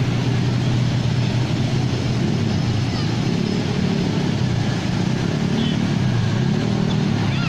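Street traffic: motorcycle and car engines running steadily, with a continuous wash of road noise.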